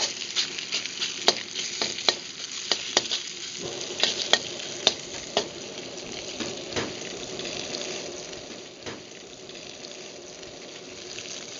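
Chicken pieces sizzling and frying in a hot wok over a gas flame turned up high. Sharp clacks of stirring come many times in the first half and only now and then later.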